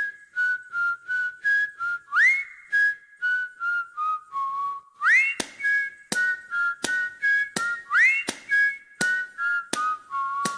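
Background music: a cheerful whistled tune in short repeating phrases, each opening with a quick upward slide, over crisp, evenly spaced percussive beats.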